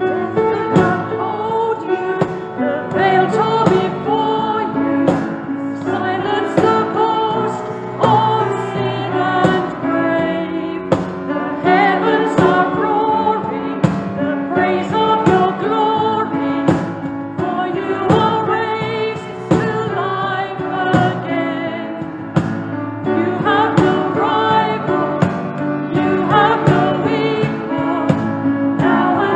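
Contemporary worship song: voices singing over band accompaniment with a steady beat.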